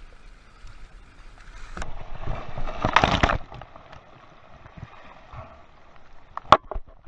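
A bottlenose dolphin leaping over a sea kayak: a loud rush and splash of water that starts about two seconds in and lasts about a second and a half, over water lapping at the hull. A few sharp taps follow near the end.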